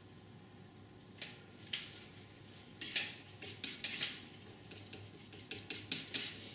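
Flexible painting knife scraping and clicking on the palette in short strokes, mixing oil paint. The strokes start about a second in and come quicker in the second half.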